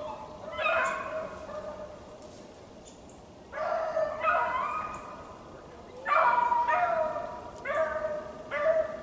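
Beagles baying on a rabbit's trail: a string of about six drawn-out howls, each falling in pitch, some overlapping.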